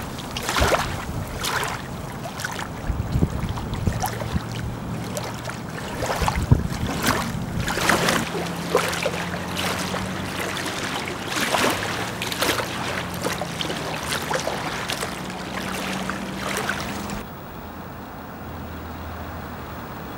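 Small waves lapping and splashing against a lake shore in irregular splashes, about one every second or so, over a steady wash of water. About three seconds before the end this cuts to a much quieter, steady outdoor background.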